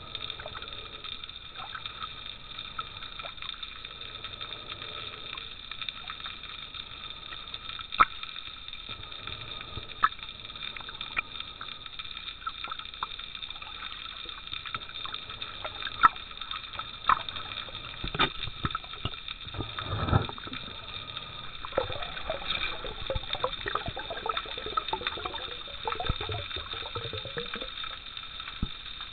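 Underwater sound picked up by a camera mask: water sloshing and gurgling past the housing, with scattered sharp clicks and a steady high-pitched whine. It grows louder and busier about two-thirds of the way through, with a brief low rush near the middle of that stretch.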